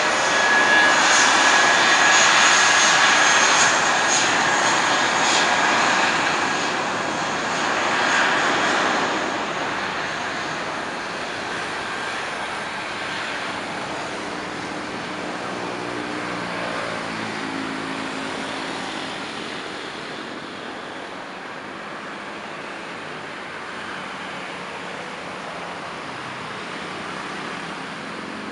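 Jet airliner, most likely the Airbus A320, taking off at full power: a loud engine noise with a steady high fan whine for about nine seconds, then fading gradually as the aircraft climbs away.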